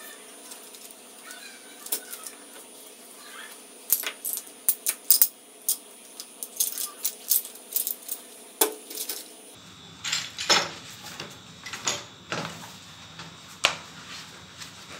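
Plastic chess pieces clicking and clacking against one another as they are gathered off the board and dropped into a cloth pouch: a busy run of sharp clicks. The clicks thin out to a few scattered knocks and handling noise as the vinyl chess mat is rolled up near the end.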